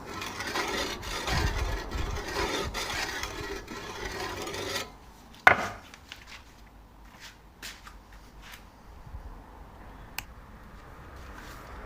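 Hand tool rasping or scraping on wood in quick repeated strokes, stopping abruptly about five seconds in. A sharp knock follows, then a few light clicks and taps.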